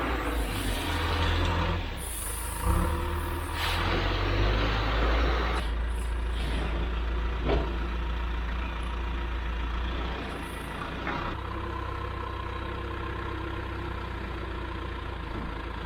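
Ford F-750 dump truck's diesel engine running steadily, with a few short hissing bursts in the first six seconds.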